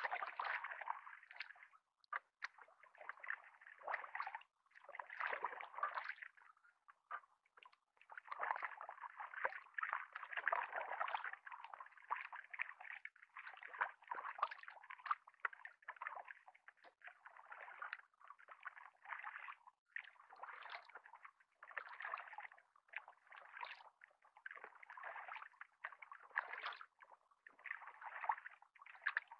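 Double-bladed kayak paddle dipping and pulling through calm water, the strokes coming every second or two as bursts of splashing and gurgling, with water dripping off the blades.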